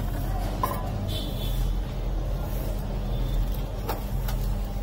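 Road traffic with a steady low engine hum, and a few light clicks.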